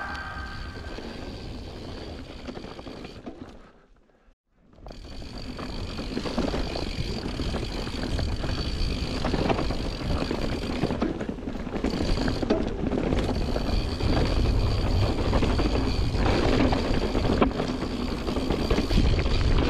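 Mountain bike ridden fast down a dirt forest singletrack, heard from a camera on the rider: wind rumbling on the microphone over tyre noise and the rattle of the bike. The sound drops out for about a second around four seconds in, then resumes.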